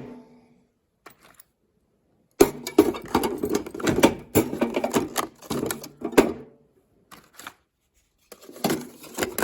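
Hand tools clattering and clinking as they are handled and sorted in a toolbox, in quick runs of sharp clicks and rattles. The first run lasts about four seconds, a few ticks follow, and the clatter starts again near the end.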